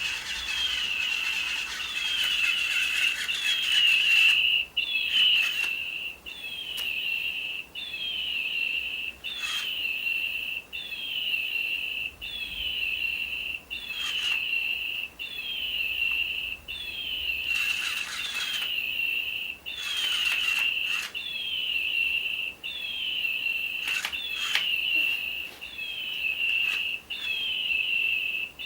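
Toy bird playing a looped electronic chirp: a few quick falling tweets repeating at an even pace, about every second and a half, with occasional clicks.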